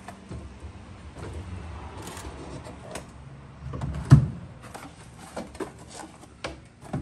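Wooden beehive bottom boards being slid and stacked onto a deep-freezer shelf: scattered knocks and scrapes of wood on wood and on the freezer, with one loud thump about four seconds in as a board is pushed home.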